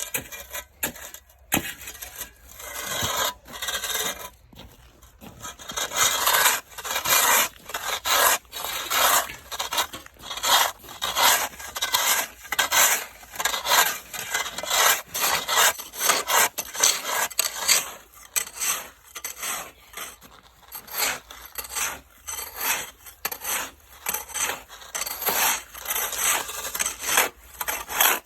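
Ice being scraped by hand, a long run of rasping strokes, about one or two a second, sparser in the first few seconds.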